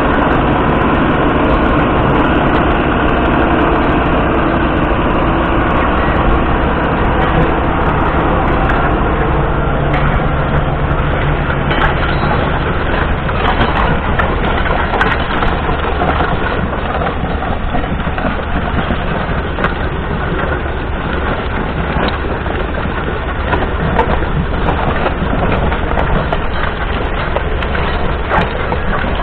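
John Deere 6930's 6.8-litre six-cylinder diesel engine running steadily under ploughing load. Over it comes the crunching and crackling of a Kuhn reversible plough's bodies and disc coulter cutting through stubble and soil. The engine is strongest in the first half, and the crackling of the soil and stubble comes to the fore in the second half.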